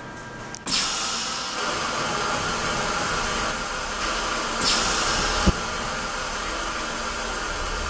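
A press machine lets out a steady hiss that starts abruptly about a second in. A louder rush of hiss comes around five seconds in, followed by a sharp click.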